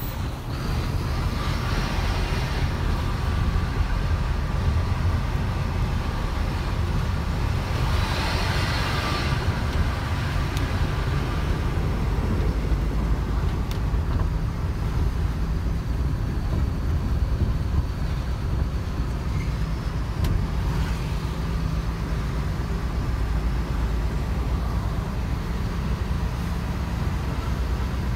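Diesel truck engine running steadily, heard from inside the cab while driving slowly, with a brief rush of noise about eight seconds in.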